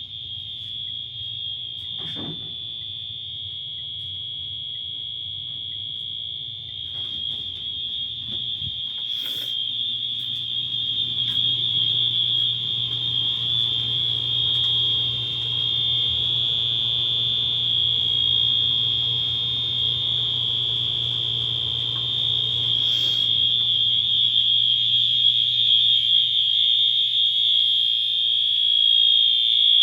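First-generation Wheelock AS fire alarm horn-strobe sounding its continuous horn: one steady, high-pitched, super loud tone, with a few brief clicks.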